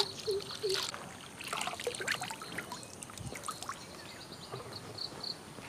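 Water splashing and trickling as hands wash a bunch of slender kutaja (Wrightia tinctoria) bean pods in a steel bowl of water. The splashing is busiest in the first half and dies down after about three seconds.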